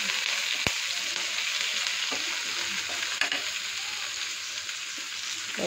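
Onions, ginger-garlic, curry leaves and mint sizzling steadily in hot oil in a nonstick frying pan while being stirred with a wooden spatula, which knocks sharply against the pan twice.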